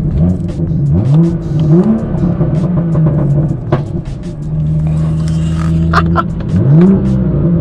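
BMW F87 M2's turbocharged N55 inline-six with a catless downpipe, heard from inside the cabin, pulling hard: the engine note climbs sharply about a second in, again shortly after, and once more near the end, with short sharp cracks through it.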